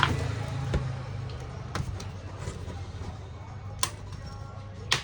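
Laptop plastic case and small tools being handled during a screw-fitting repair: a few short sharp clicks and light knocks, the loudest just before the end, over a low hum that fades out in the first second.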